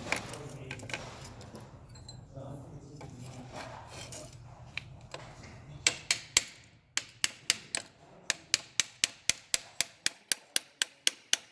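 Sharp hammer strikes breaking a casting mold away from a bronze casting: a few scattered knocks over low room murmur at first, then from about halfway a fast, even run of strikes, about four a second.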